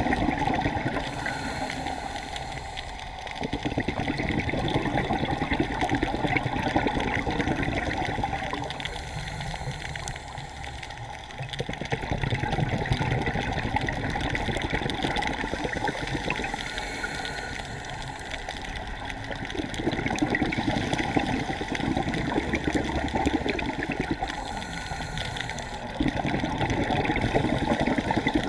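A scuba diver breathing through a regulator underwater: rushing, bubbling exhalations alternating with quieter inhalations, swelling and easing every few seconds.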